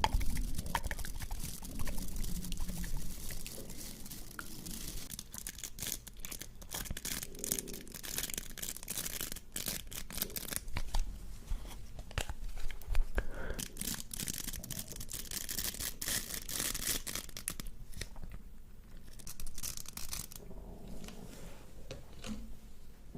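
ASMR trigger sounds close to the microphone: crinkling, tearing and scratching with many sharp clicks, busiest in the middle and thinning out near the end.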